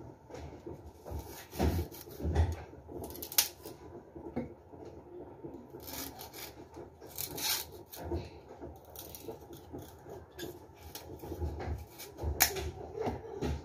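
Knife scraping and cutting the hard rind off a piece of sugarcane: irregular short scraping strokes and clicks, with a few dull knocks.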